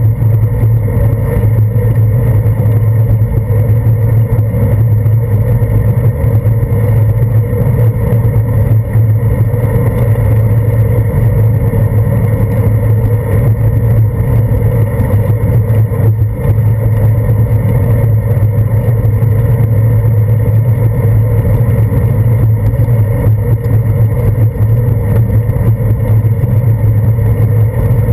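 Steady loud rumble of wind and road vibration picked up by a handlebar-mounted GoPro Hero 2 in its waterproof housing while a bicycle rolls over wet pavement. The level holds even throughout.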